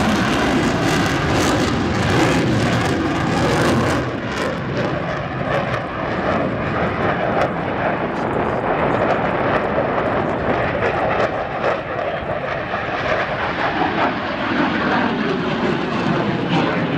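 A U.S. Air Force Thunderbirds F-16 jet's engine, loud on a low fly-by. The noise is loudest and harshest for the first four seconds or so, then eases off a little as the jet moves away, still filling the air.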